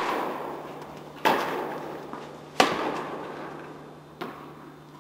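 Tennis ball being struck by rackets and bouncing during a rally, each hit a sharp crack with a long echo in a large indoor tennis hall. Three impacts come about a second and a half apart, the last one fainter.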